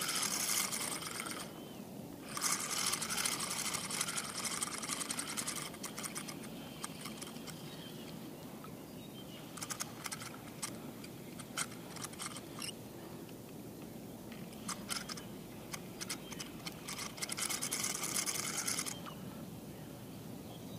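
Spinning reel being cranked in several bursts, a fast whirr of fine clicks from the reel, as a bottom-rod line is wound in to check a bite.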